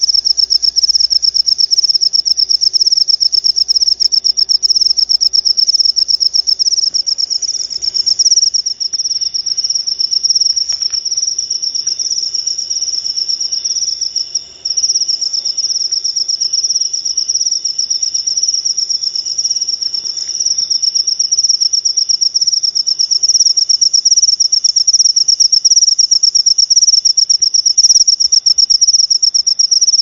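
Crickets chirping in a steady, fast, high-pitched trill, with a second, fainter and lower-pitched chirping joining about eight seconds in.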